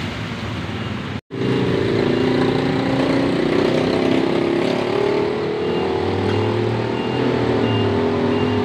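An even rushing noise, then after a brief cut-out just over a second in, a motor vehicle engine running steadily with a low hum while driving through floodwater.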